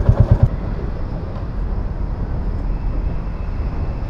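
Royal Enfield Classic 350's single-cylinder engine idling with an even, rapid thump, which stops abruptly about half a second in. A steady low rumble of vehicle and road noise follows.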